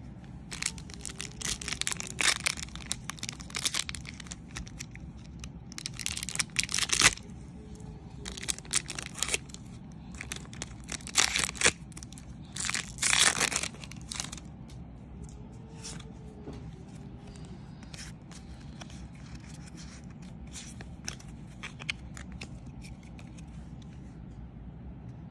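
Wrapper of a Pokémon Evolutions booster pack being crinkled and torn open, in a run of sharp tearing and crackling bursts through the first half or so. Afterwards only soft scattered clicks and rustles of cards being handled.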